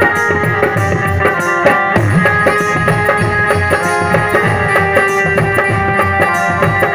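Live devotional bhajan music: a hand drum keeps a steady quick beat under held melody notes, with a regular high shimmer on the beat.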